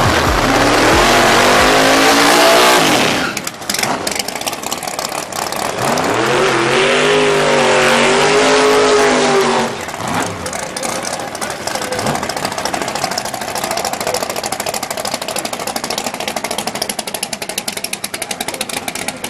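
Fox-body Ford Mustang drag car's engine revving hard through a burnout in two long pulls. The first pull runs about three seconds and climbs in pitch. After a short break, the second lasts about four seconds, rising and then falling. The engine then settles into lower, rougher running.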